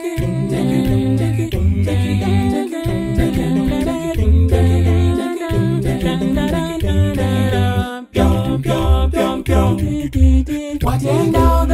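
Male a cappella group singing a Swahili gospel song in close harmony, with a deep bass voice holding repeating low notes beneath the melody. The singing breaks off briefly about eight seconds in, then carries on.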